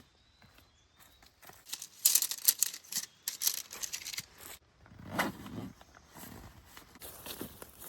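Irregular rustling and crinkling from something being handled, with a fuller burst about five seconds in.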